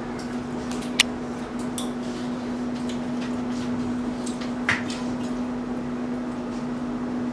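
A steady hum with one pitch, with a few sharp clicks and knocks over it: one about a second in and another near five seconds in.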